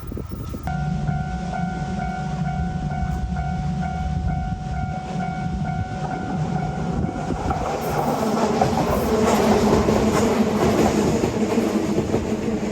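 Level crossing warning alarm ringing in a steady two-pitch tone, then a train passing over the crossing from about seven seconds in, its wheels on the rails growing louder and covering the alarm.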